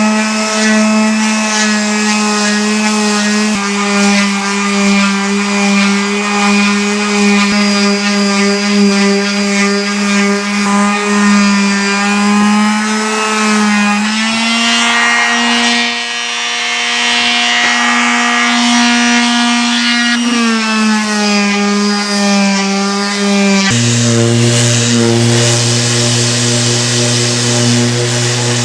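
A motor-driven woodworking machine running steadily with a strong pitched hum. The pitch steps up about halfway through, with a cutting hiss, drops back again, and falls to a deeper hum near the end.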